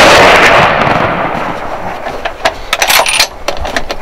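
Deer rifle shot fired from inside an enclosed box blind: a very loud blast that rings and rolls away slowly over several seconds, with a run of sharp clicks and knocks near the end, then cuts off suddenly.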